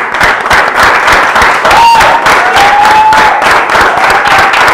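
Studio audience applauding steadily with dense clapping, a voice calling out over it for a moment about two seconds in.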